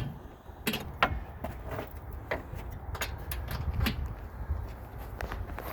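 Irregular clicks and clinks of a hand wrench and metal parts being handled during car bodywork reassembly, about one or two a second, over a low rumble of handling noise.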